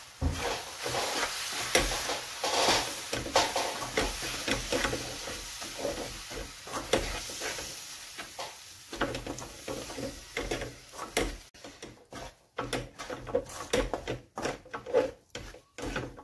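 Wooden spatula stirring and scraping a thick barfi mixture of flour, ghee and milk powder in a metal kadhai, in quick irregular strokes that thin out into separate sharper scrapes in the last few seconds.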